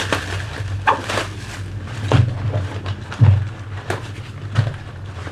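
Handling noise from a soft camera filter pouch and its contents: a few irregular soft knocks and clicks as it is opened and checked, over a steady low hum.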